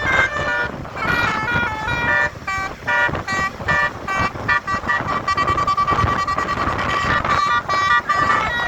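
Basuri-type telolet bus horn, a multi-tone musical horn, playing a quick melody of short stepped notes, then holding one steady note from about five seconds in.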